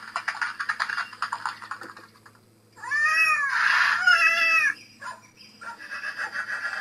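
Recorded farmyard sound effects played from a model railway layout's sound chip: a rapid run of hen clucking, then a drawn-out cat meow about three seconds in, rising and falling in pitch.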